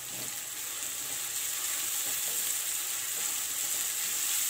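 Chopped onions and cumin seeds frying in hot oil with a steady sizzle, salted so they brown faster, and a spatula stirring and scraping through them in the pan.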